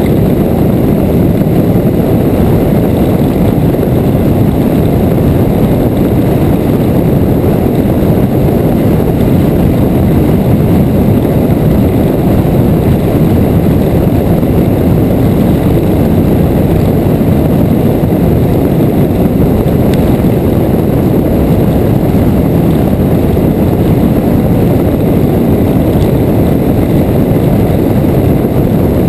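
Motorcycle cruising at steady highway speed, heard from a bike-mounted camera: wind rushing over the mount mixed with the engine, a loud, even rumble that does not change.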